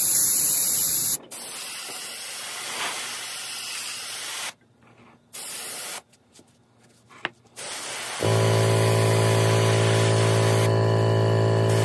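Airbrush spraying paint: hissing passes of air and paint, loudest in the first second, broken by short pauses. About eight seconds in, a steady low hum with even overtones starts and runs under the hiss.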